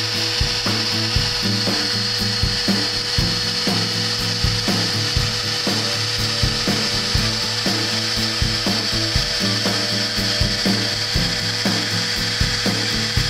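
Small CNC milling machine cutting aluminium plate with an end mill. A steady high spindle whine runs over low motor tones that jump in pitch every fraction of a second as the axes move, with frequent short ticks from the cut.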